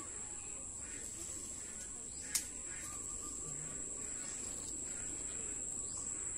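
Steady high-pitched insect buzz, with a pulsing mid-pitched chirp now and then, and one sharp click about two and a half seconds in.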